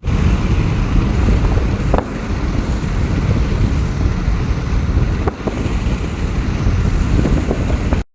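Strong wind buffeting the microphone, a loud gusty rumble heaviest in the lows, with a few faint clicks.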